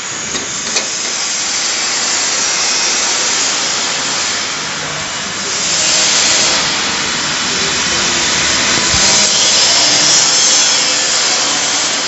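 A small stainless-steel cylinder machine running with a steady hissing rush, swelling louder about six seconds in and again near the end.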